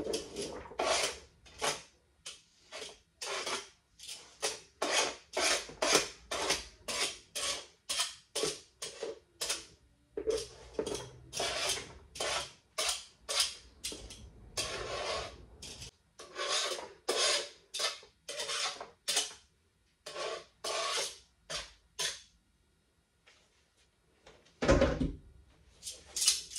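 Chopped vegetables being scraped off a cutting board into a plastic salad bowl with a utensil: repeated short scraping strokes, about two a second, that stop about 22 seconds in. A single thump follows near the end.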